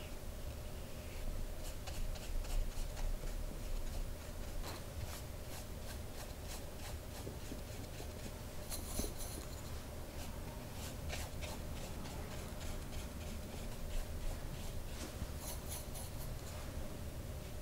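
Paintbrush strokes laying poster colour on hot-pressed watercolour paper: soft dry brushing with faint scratchy ticks. Two brief brisker scratchy passes come about halfway through and near the end, over a faint steady hum.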